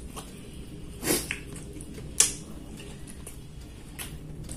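Close-miked eating sounds from a person chewing, with a short noisy burst about a second in and a sharp click, the loudest sound, a little after two seconds, then a few small clicks.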